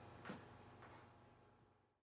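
Near silence: faint room tone with a low hum and a soft click about a third of a second in, cutting to dead silence near the end.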